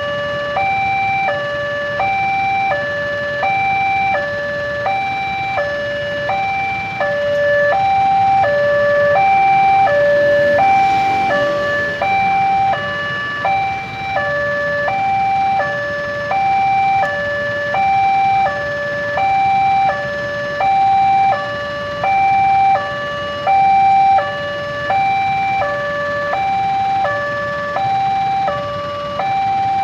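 Railway level-crossing warning alarm sounding, an electronic two-tone high-low chime repeating steadily, the signal that a train is approaching the crossing.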